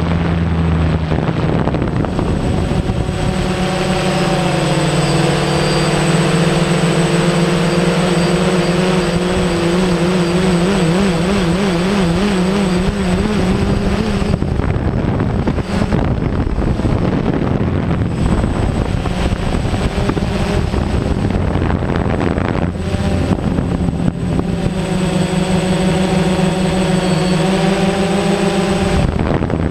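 Multirotor drone's motors and propellers whining steadily, heard from its onboard camera, with the pitch shifting as it manoeuvres and a warbling stretch partway through.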